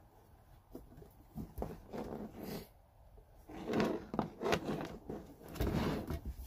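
Battery charger and engine starter being handled and turned over on a workbench: its case scrapes and knocks against the bench and its cables rustle, in irregular bursts that grow louder in the second half.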